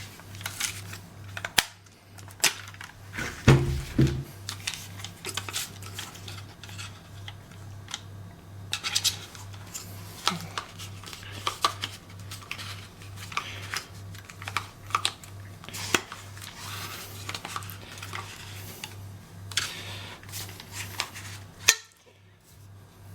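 Hard plastic being handled: a run of irregular clicks, taps and rattles, with a dull thump about three and a half seconds in, over a low steady hum.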